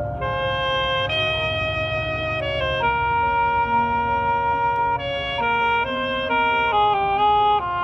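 High school marching band's brass and woodwinds playing a slow passage of held chords that move to new notes every second or so.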